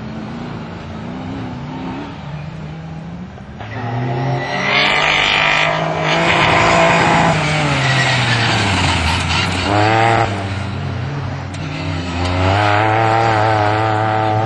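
Competition safari off-road racing car's engine at high revs, growing louder as the car approaches and dropping in pitch as it passes close about eight seconds in. A quick change in revs around ten seconds in, then the engine holds high revs as the car drives away.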